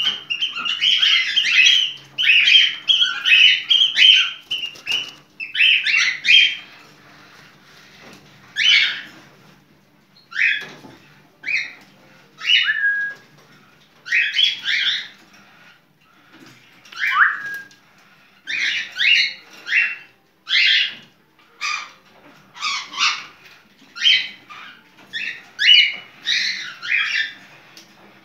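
Cockatiel making its in-heat breeding calls, shrill chirps and squawks. For the first several seconds they come in a dense chattering run, then as short separate calls about once a second with pauses between.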